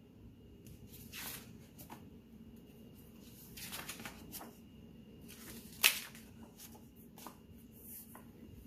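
Pages of a paperback picture book being turned by hand: several soft paper rustles and swishes, with one sharp click about six seconds in, the loudest sound.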